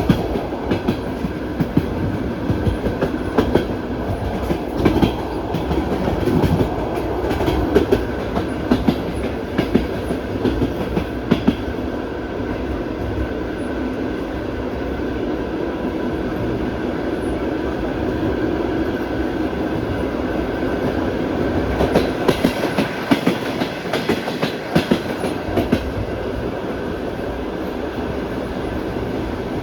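Passenger train wheels clattering over rail joints, heard from on board over a steady rolling rumble. The knocks come thick and irregular at first, thin out through the middle, and bunch up again later on.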